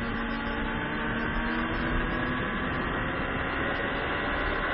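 Sport motorcycle engine at high revs under acceleration, its pitch climbing slowly and steadily, with a constant rush of wind noise on the mounted camera.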